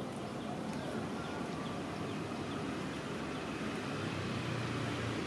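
Steady outdoor background noise, joined about four seconds in by a low motor hum, like a vehicle engine.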